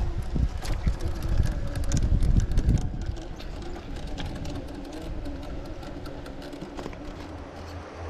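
Redcat Ascent Fusion RC rock crawler driving over rocks: a faint wavering hum from its brushless motor, with many sharp clicks and crackles from stones under the tyres. Low rumbling wind buffets the microphone for the first three seconds.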